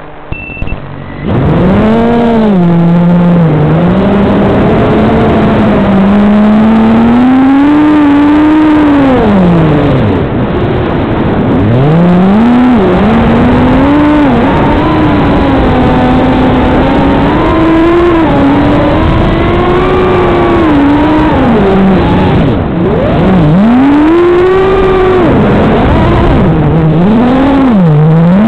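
Hyperlite Floss 5-inch FPV racing quadcopter's brushless motors and propellers whining in flight, recorded on the quad's own microphone. The pitch constantly swoops up and down with throttle, starting about a second in, with two deep dips where the throttle is chopped.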